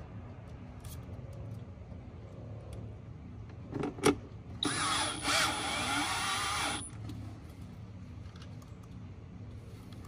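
Cordless power driver running for about two seconds against a car door, driving a fastener, its motor whine wavering in pitch. A sharp click comes just before it.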